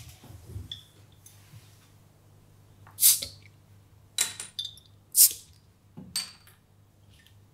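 Glass beer bottles being opened: two loud, sharp pops of caps coming off about two seconds apart, with smaller glass-and-metal clinks between and after them.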